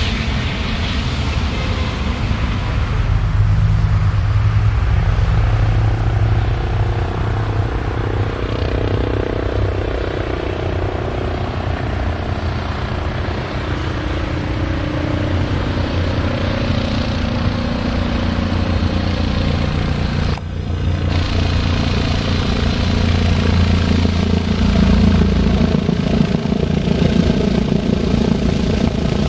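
Eurocopter EC135 medical helicopter running close by, its twin turboshaft engines and rotor making a loud, continuous throbbing with a drifting whine. There is a short break in the sound about two-thirds through.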